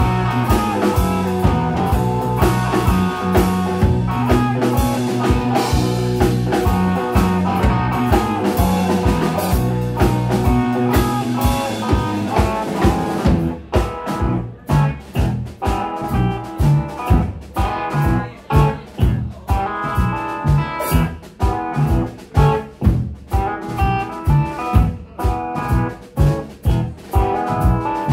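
Live instrumental blues-rock played on electric guitars and a drum kit. About halfway through, the full, sustained sound drops to a sparser, choppy stop-start groove of short punched hits.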